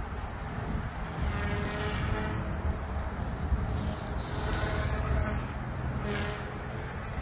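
Faint whine of a distant OMP Hobby M2 V2 electric RC helicopter in flight, its pitch shifting slightly as it comes and goes while it manoeuvres. A steady low rumble of wind on the microphone runs under it.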